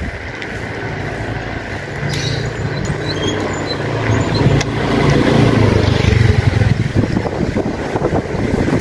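Motor scooter engine coming closer and passing by, growing louder to its peak a little past the middle, then easing off.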